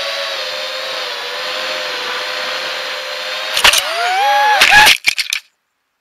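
The four DYS BE1806 2300KV brushless motors of a 250-size quadcopter whine steadily in flight. About three and a half seconds in it crashes, with knocks and clatter of the props and frame hitting the ground while the motor whine swings up and down in pitch. The sound then cuts off suddenly.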